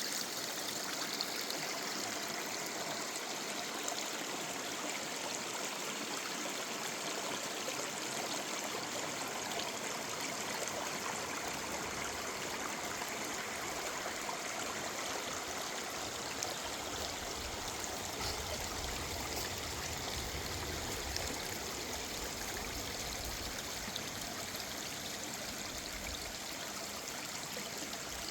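A woodland river running steadily: an even wash of water over stones with light trickling.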